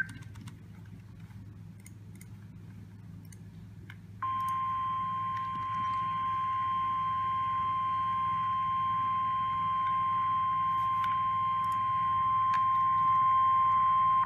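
Weather-radio receiver hissing with a low hum, then about four seconds in the steady 1050 Hz warning alarm tone comes on and holds for about ten seconds before cutting off. It is the alert tone that announces an Emergency Alert System message.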